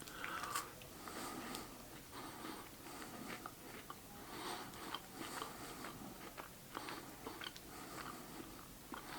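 A person chewing a bite of white-chocolate Duplo bar with a crisp wafer centre, faint uneven crunching and mouth sounds.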